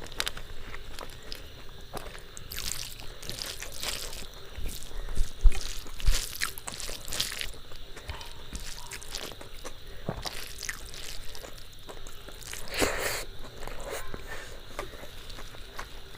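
Close-miked eating sounds: wet chewing, lip smacks and mouth clicks, coming irregularly and in short bursts, while working through a meal of rice with fish curry.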